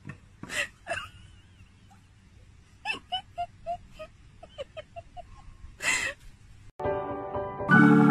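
Dog whining in short high yips, a couple at first and then a quick run of about four or five a second, with a breathy huff near the end. Organ music cuts in and grows louder in the last second.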